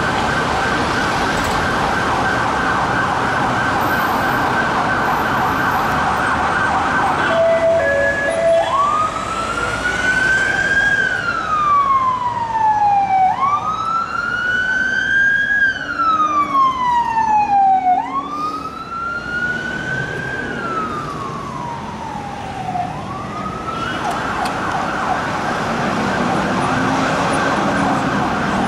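Metropolitan Police Mercedes Sprinter van siren in traffic. It starts as a rapid yelp, gives a couple of brief steady tones about seven seconds in, then changes to a slow wail that rises quickly and falls slowly, four times about every four to five seconds. It goes back to the rapid yelp near the end, with road traffic underneath.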